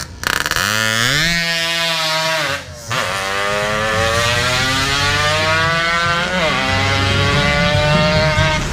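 Two-stroke Yamaha RX-King motorcycle accelerating hard away from a standstill after a carburettor setting. Its engine note rises three times as it goes up through the gears, dropping briefly at each of the two shifts.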